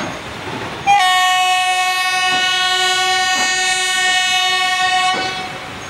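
Train horn sounding one long, steady blast of about four seconds, starting about a second in.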